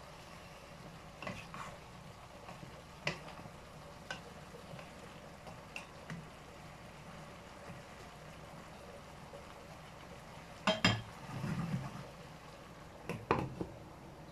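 Wooden spatula stirring and scraping chopped vegetables in a nonstick frying pan, with scattered light knocks. A louder clatter comes about three quarters of the way through and again near the end, as a glass pot lid is set on the pan.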